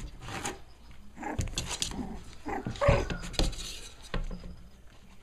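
Five-week-old Cavalier King Charles Spaniel puppies playing, with a few short yips and scuffling; the loudest yip comes about three seconds in.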